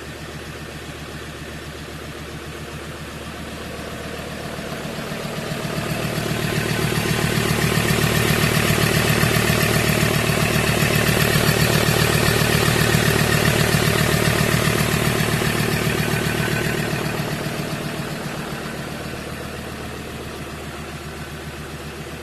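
Ford Transit's 3.2-litre five-cylinder diesel idling steadily with an even low rumble, growing louder for several seconds in the middle and then easing back.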